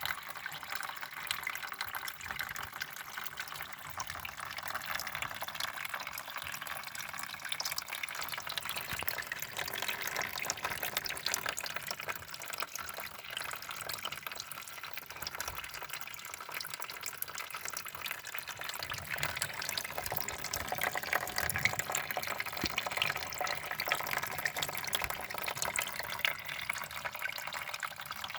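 Water from a small home-made pump trickling and splashing steadily down a tabletop waterfall into a bowl, a continuous watery patter full of small drips.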